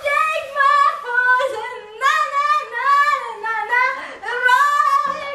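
A woman's high-pitched voice singing a sing-song victory chant, one short held note after another.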